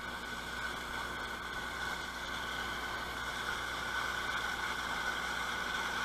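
Steady rushing of river whitewater tumbling over rocks.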